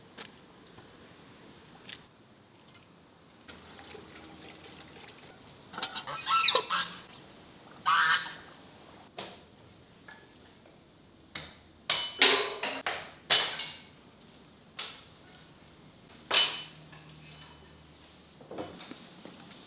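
Farmyard fowl calling in a series of short, loud bursts, the busiest run of calls a little past the middle.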